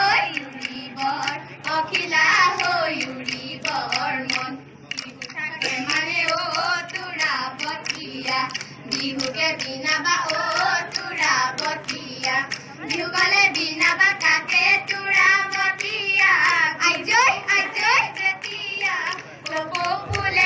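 Girls singing an Assamese Bihu song through a microphone and loudspeaker, over a steady rhythm of hand claps.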